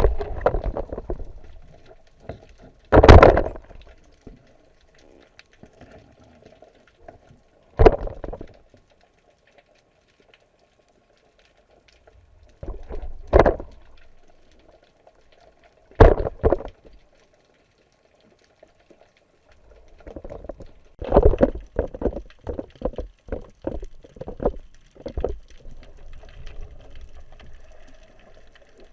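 Water splashing and gurgling in irregular bursts: four separate splashes spaced several seconds apart, then a quick run of splashes later on, with quiet gaps between.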